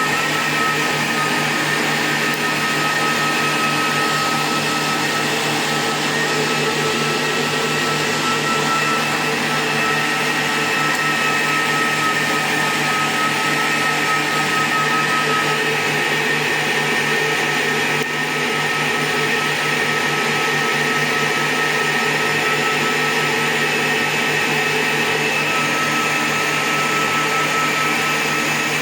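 Repaired 2000-watt power supply and mainboard running on a post-repair test: a steady whirring hum with several constant high whine tones, unchanging throughout.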